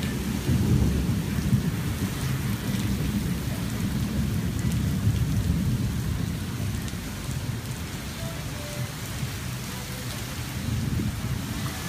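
Heavy rain pouring onto pavement, a steady hiss, with a strong low rumble underneath that eases off about halfway through.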